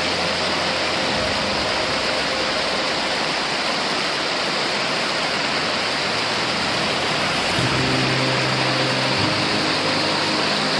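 A loud, steady rushing hiss with no breaks, under faint soft background music with held low notes that change a few times.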